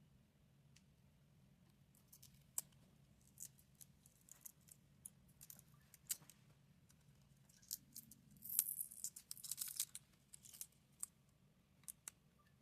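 Faint clicks and light taps of small hand tools on the phone, with a short scraping run about two-thirds of the way in.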